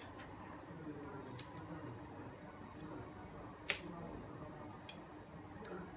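Light clicks and taps of plastic and metal parts as a sprayer's spray lance and nozzle are handled and fitted together, with one sharper click a little past halfway.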